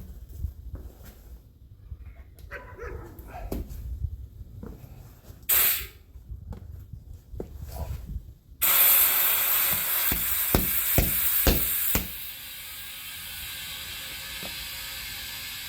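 Light clicks and knocks of handling, with one short puff of air, then compressed air hissing loudly into a tire after a new TPMS sensor was fitted. A few sharp knocks sound during the hiss, and it settles to a steadier, quieter hiss near the end.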